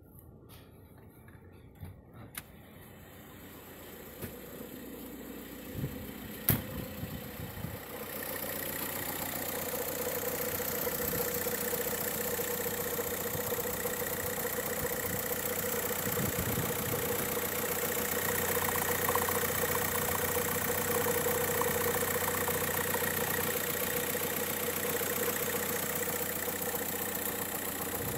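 VW Sharan's 1.9 TDI (ASZ) four-cylinder turbodiesel idling steadily. It is muffled at first, from inside the cabin, with a few clicks and one sharp knock about six seconds in. From about eight seconds on it is louder and clearer from the open engine bay.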